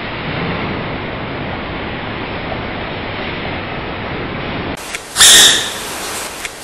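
Steady background hiss, then about five seconds in a single short, loud, high-pitched sneeze from a baby giant panda.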